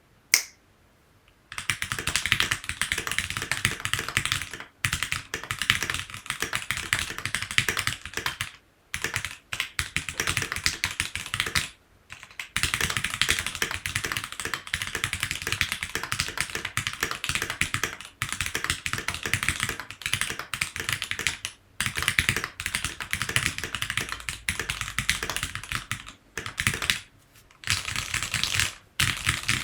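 Continuous typing on a Keychron Q5 mechanical keyboard: a dense run of key clacks, broken by brief pauses every few seconds.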